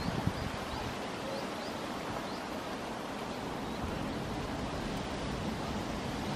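Steady outdoor background hiss of open-air ambience, with a few faint, short high chirps in the first half.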